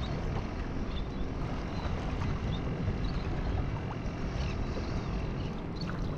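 Water lapping against a plastic kayak hull with a steady low rumble of wind, and a few faint short high chirps now and then.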